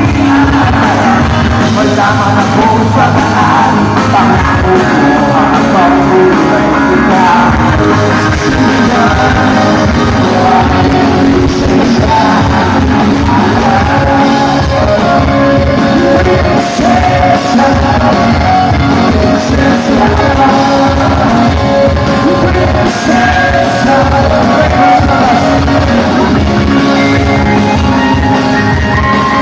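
Live rock band playing at full volume through large PA speakers, with singing. The recording is overloaded and muddy from the nearby speakers.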